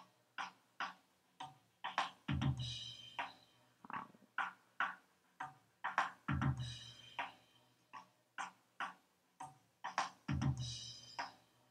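Recorded drums playing back from the soloed floor-tom microphone. A deep floor-tom hit with a ringing tail comes about every four seconds, and snare hits and cymbals that bleed into the mic fill the gaps between them.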